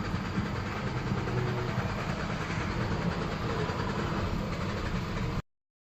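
A 2013 Hyundai Sonata's four-cylinder engine running steadily after being restarted at the pump, following a hard start and a stall right after refuelling, which the owner puts down to a failed purge valve.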